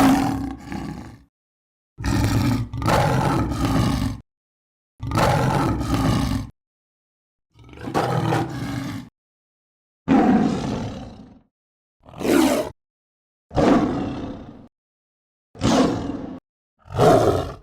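Predator (Yautja) creature vocal sound effects: a string of about nine separate growls and roars, each one to two seconds long, cut apart by dead silence. The later calls are shorter and more pitched.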